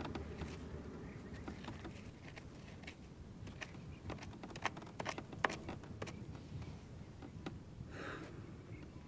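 Light scratching and a scatter of small clicks from a twig poking in dry dirt, sharpest in the middle, over a faint low background hum, with a short rustle near the end.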